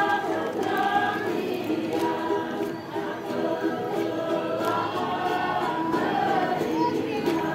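Group of Dayak Kenyah women singing the Datun, a traditional communal song, together as a choir, in long held notes.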